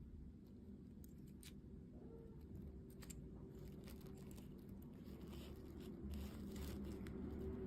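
Faint clicks and crackles of food being handled or eaten, growing denser about six seconds in, over a low steady hum.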